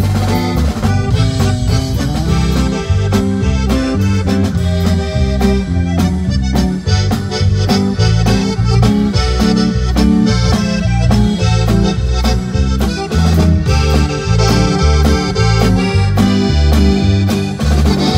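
Live conjunto band playing, the button accordion carrying the melody over a bouncing bass line and a steady drum beat.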